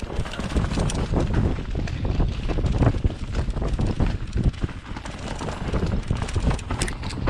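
Mountain bike riding down a rocky, leaf-covered trail: wind buffeting the helmet-camera microphone over tyres rolling through dry leaves, with frequent knocks and rattles as the bike goes over rocks and roots.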